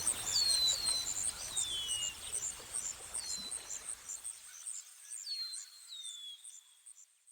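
Ambient nature track of birds: a quick run of high chirps with short falling whistles over a soft hiss. It fades out steadily over the last few seconds.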